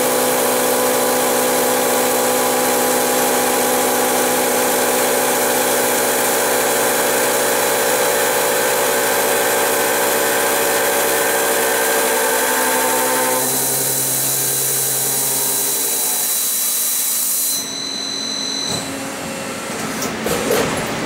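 Milling spindle of a FICEP Valiant CNC beam drill line cutting a steel beam flange: a loud, steady whine of several tones over a hiss of cutting noise. About two-thirds through the whine dies away as the cut ends, leaving quieter machine noise with a few clicks near the end.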